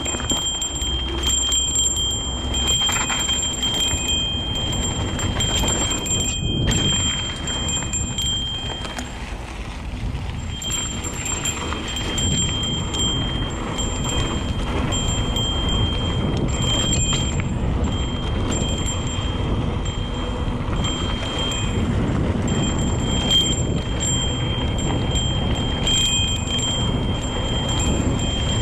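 Mountain bike rolling along a dirt trail: rumbling tyre and wind noise, with a high, steady ringing tone from the bike that cuts in and out several times, dropping away for a second or two near the middle.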